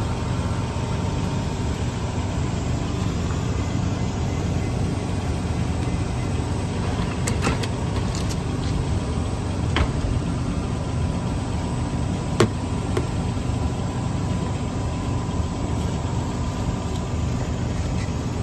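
Large coach's diesel engine idling steadily, a continuous low hum. A few short knocks stand out over it, from bags and luggage being handled.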